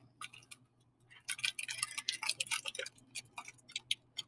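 Crunching of a Perk chocolate-covered wafer bar being bitten and chewed: a quick run of small crisp clicks and crackles, densest for about a second and a half from about a second in.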